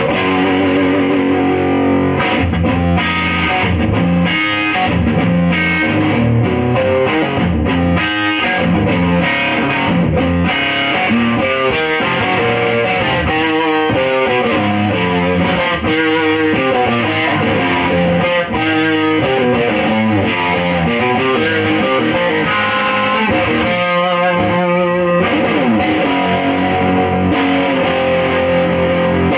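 Electric guitar played through an Audile TOAD overdrive and distortion pedal set to a fuzz tone with the mid-scoop Tadpole board. The playing is continuous, mixing chords and single-note lines.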